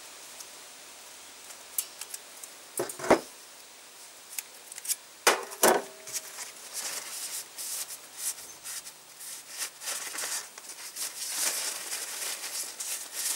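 Piston ring pliers working a compression ring off an engine piston: metal clicks and clacks, two sharper ones about three and five and a half seconds in, the second with a brief ring, then a long run of small rapid clicks and scrapes.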